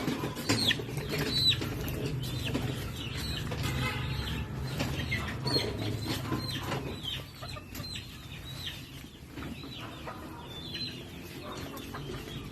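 Chickens calling, many short high cries that fall in pitch, over rustling and wing flapping.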